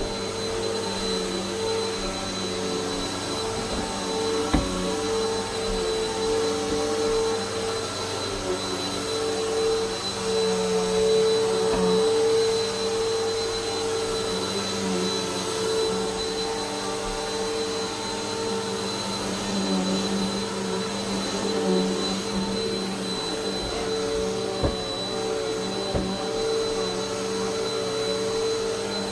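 Vacuum cleaner running steadily as it cleans the bedroom floor, with a hum that wavers a little in pitch as it is pushed about and a few short knocks.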